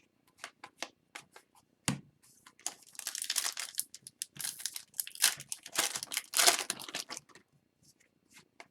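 Foil wrapper of a hockey card pack crinkling and tearing as it is handled and opened, for about five seconds after a sharp knock about two seconds in, with light clicks of card handling before and after.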